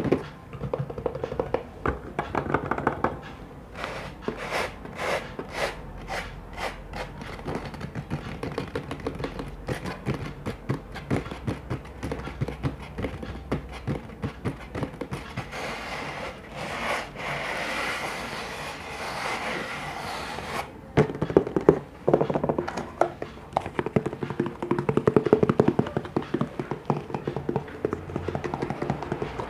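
Close-miked ASMR tapping and knocking on objects: many quick taps and thunks, some in fast runs, with a steady hiss lasting several seconds past the middle.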